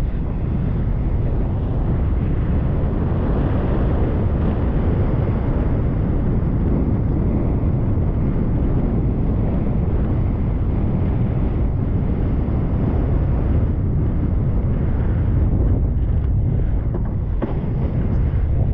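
Wind buffeting the microphone of a wingfoiler's body-mounted camera: a steady, heavy low rumble.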